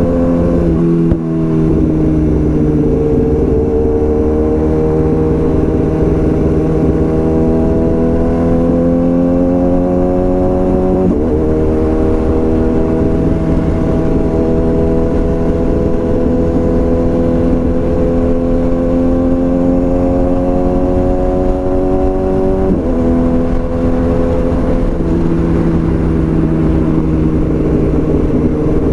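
BMW S1000RR inline-four engine running through a full Akrapovič exhaust under way: the engine note climbs slowly in pitch and drops sharply at each upshift, once just after the start, once near the middle and once past three-quarters of the way through.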